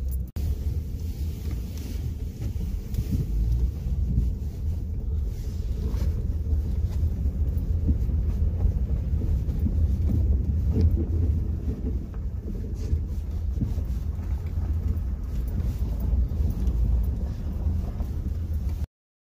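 Honda Ridgeline pickup heard from inside the cab while driving slowly over a snowy, rutted track: a steady low rumble of engine, tyres and suspension, with a few light knocks. The sound cuts off suddenly near the end.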